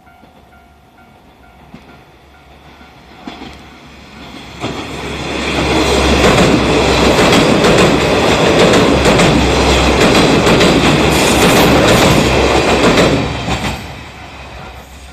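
Level crossing warning bell ringing in a steady repeating pattern, then a Hiroden train runs past over the crossing, its wheels clacking over the rail joints. The clacking is loudest in the middle and dies away near the end.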